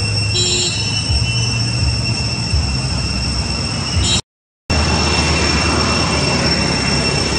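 Steady high-pitched insect drone in the trees over a low rumble, with the sound cutting out for half a second about four seconds in.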